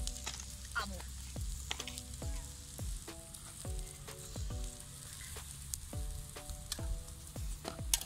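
Background music: keyboard chords over a bass line and a kick drum whose pitch drops on each hit, with a steady crackling hiss beneath it and a sharp click near the end.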